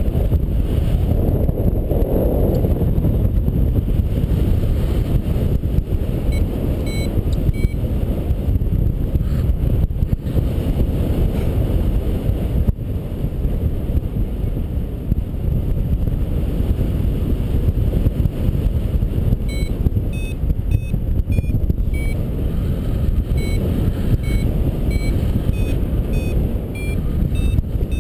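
Airflow buffeting the microphone in a paraglider's flight, a steady low rush. A paragliding variometer beeps in short, high, quickly repeated tones, briefly about a quarter of the way in and then through the last third: the climb tone that signals the glider is rising in lift.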